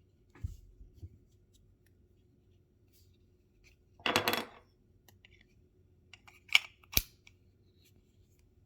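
Small plastic-and-metal handling sounds of a car key fob being put back together around its CR2032 coin-cell battery: a knock, a short scraping rattle about four seconds in, then two sharp clicks near the end.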